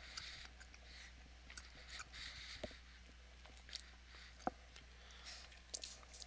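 Faint chewing of a bite of bread topped with hot sauce, with a few small scattered clicks.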